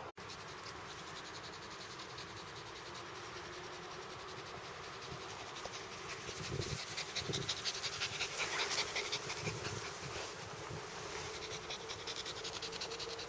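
Tibetan terrier and Lhasa apso panting and rustling through grass close by, loudest in the middle as they run up, over a faint steady hum.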